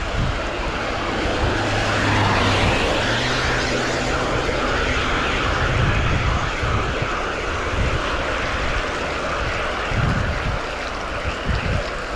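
Wind rushing over the microphone and a steady hiss of tyre spray on a wet road while a road bike is ridden in heavy rain. A low engine drone rises over it for the first few seconds and fades out about halfway through.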